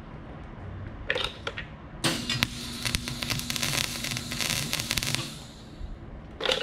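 Welding on a steel bumper: a dense crackling hiss packed with rapid clicks, lasting about three seconds, with shorter bursts before and after it.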